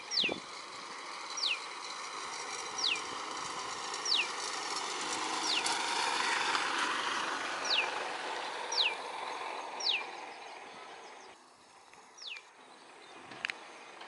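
Common tailorbird calling: a series of sharp, high notes, each sweeping quickly downward, repeated about once every second or so, nine in all, over a steady background hiss. A single sharp click near the end.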